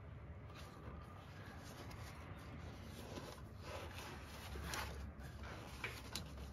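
Faint rustling and scraping of hands working a foam engine sound pad into place behind parts in the engine bay, with a few small clicks and taps in the second half, over a low steady hum.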